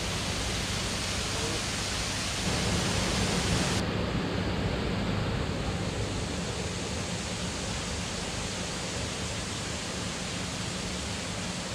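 Steady rush of a waterfall and mountain stream. The sound changes abruptly about four seconds in and loses its highest hiss.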